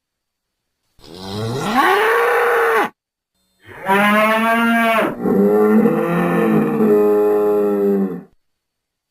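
A bull mooing: a call rising in pitch about a second in, then a longer, steadier call of about four and a half seconds, with a brief break about five seconds in.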